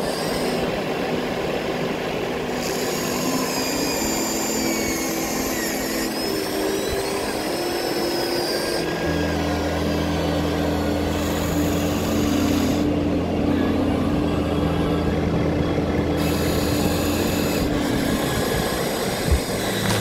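Small electric gear motors of a Huina remote-control toy excavator whining as its boom, arm and bucket move. The whine starts and stops several times and slides up and down in pitch as the motors take load.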